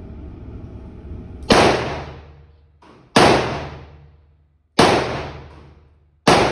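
Taurus Judge Public Defender revolver firing .410 rifled slugs: four loud shots about a second and a half apart, each with a ringing echo that dies away.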